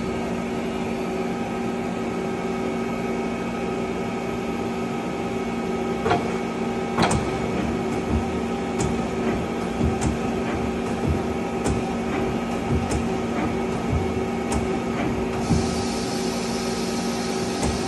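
Tool turret of a 1995 Mazak SQT15MS CNC lathe indexing from station to station: a series of sharp clunks about a second apart, starting about six seconds in, over the machine's steady running hum.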